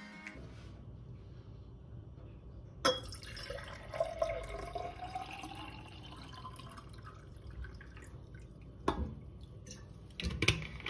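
Water dripping and dishes clinking at a kitchen sink, with a sharp clink about three seconds in, a tone rising in pitch over the next couple of seconds, and a few knocks near the end.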